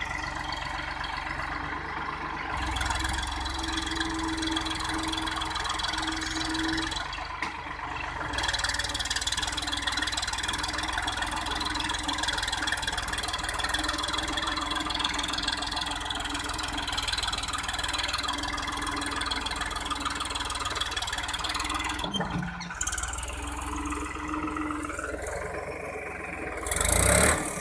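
New Holland 3630 tractor's three-cylinder diesel engine running under load as it crawls over loose dirt, with a steady high whine that comes and goes. A loud brushing noise near the end.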